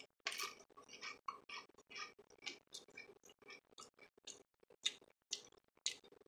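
Chewing a mouthful of crunchy corn tortilla chips (Doritos Simply Organic White Cheddar): a run of quick, irregular crunches, several a second.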